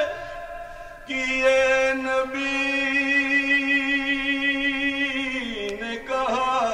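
A man's solo voice chanting a devotional naat, holding one long wavering note from about a second in, then sliding down into shorter notes near the end.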